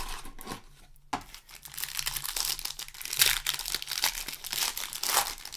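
Foil booster pack wrapper of Magic: The Gathering cards crinkling and crackling as it is handled and torn open. The crackle picks up about a second in and keeps going.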